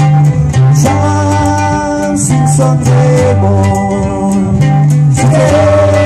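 Live acoustic band playing an upbeat tune: plucked and strummed acoustic guitars and ukulele over a bass guitar line. A lead voice comes in near the end.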